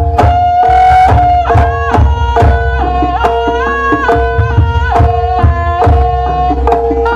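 Javanese jaranan ensemble music: a reedy wind instrument plays a held melody that steps between pitches over a steady drone, with frequent hand-drum strokes and a deep low end beneath.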